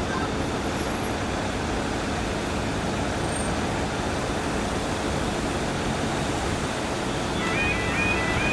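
Steady road traffic noise from cars queued and moving off at a level crossing. Near the end the crossing's warning alarm starts, a short tone repeating about twice a second, as the amber light comes on before the barriers lower.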